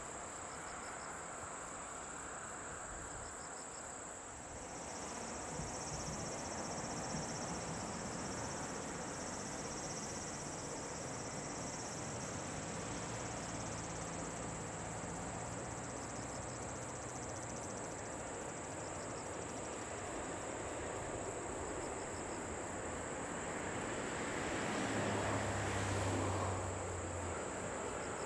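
Insects chirping steadily with a high continuous trill and a rapid pulsing above it. Under them the jet noise of a Boeing 737-800's CFM56-7B engines on landing approach builds from about four seconds in and is loudest near the end.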